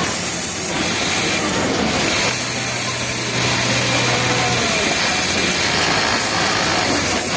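Industrial flatlock sewing machine running: a steady mechanical hum and hiss with no pauses, and faint voices behind it.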